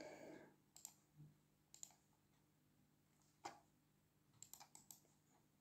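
Faint computer mouse clicks over near silence. There are single clicks about one and two seconds in, a slightly louder one a little past three seconds, and a quick run of four near the end.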